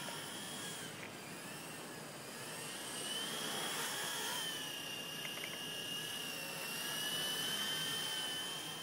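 Nine Eagles Solo Pro 328 micro RC helicopter in flight: its electric motor and rotors give a steady high whine. The pitch wavers slightly, rising a few seconds in and dipping near the middle.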